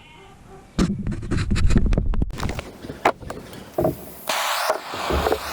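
Scattered knocks and rattles of metal parts being handled, then about four seconds in a steady hissing rush starts up: a heating tool switched on to heat the end of a broken recoil starter spring.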